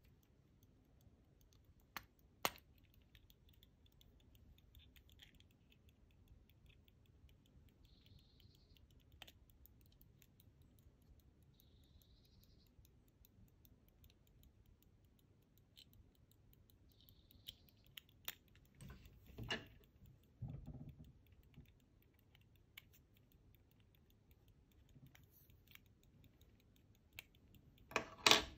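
Antique verge fusee pocket watch ticking quickly and faintly, with sharp clicks and handling noise from its gold case and bezels. There are two sharp clicks a couple of seconds in, some rubbing and knocking around two-thirds of the way through, and the loudest cluster of clicks near the end.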